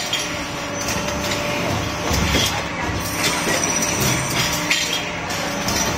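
Machinery on a steel bottle production line running: a steady hum and a thin high whine, with irregular metallic clanks and knocks from the robot arms and presses.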